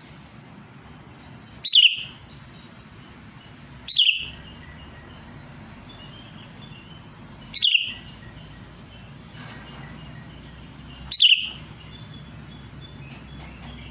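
Sooty-headed bulbul giving loud, short calls, each a sharp note sliding down in pitch, four times a few seconds apart, with fainter chirps between. The uploader presents it as a bulbul calling out to a rival.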